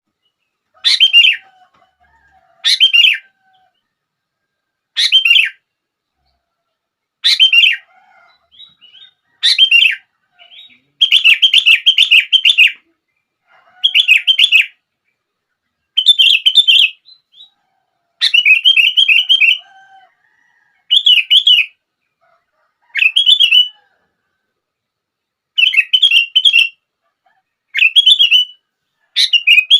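Sooty-headed bulbul (kutilang) singing in full voice: about fourteen short song phrases, each half a second to two seconds long, separated by brief pauses.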